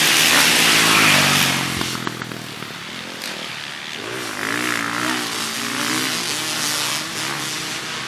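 Motocross dirt bike engines revving hard, the nearest one loud for the first second and a half, then fading. From about four seconds in, another bike's engine rises and falls in pitch as it is throttled on and off.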